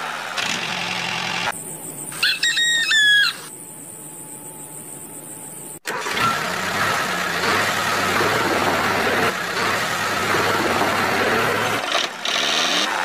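A rooster crows once about two seconds in. After a sudden cut near the middle, a steady, dense mechanical running noise like a small engine follows.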